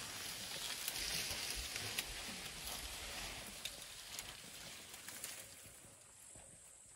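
Leaves and branches of a thorny bush rustling as elephants pull at it while browsing, with a few sharp twig snaps. The rustling dies down after about five seconds.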